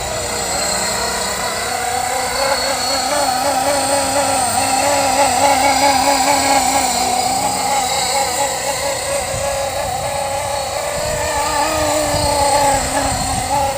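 Blade SR electric radio-controlled helicopter in flight, with shortened 450-size main blades: a steady motor-and-rotor whine whose pitch wavers up and down continually as the rotor load changes.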